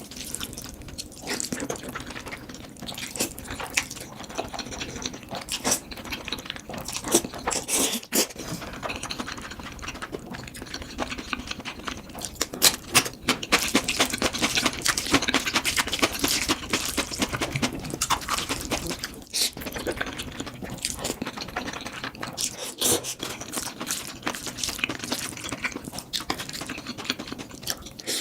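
Close-miked eating sounds: wet chewing and smacking of noodles, a dense run of small sticky clicks and moist mouth noises.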